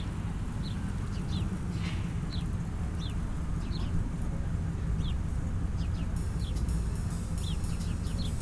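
Steady low road rumble inside a moving car, with a bird's short falling chirps repeating about once a second. About six seconds in, a fast high ticking joins.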